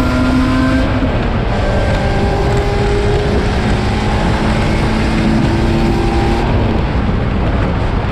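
Race car engine running hard under dense road and wind noise, its pitch holding or creeping upward, with shifts in the engine note about a second in and again near the end.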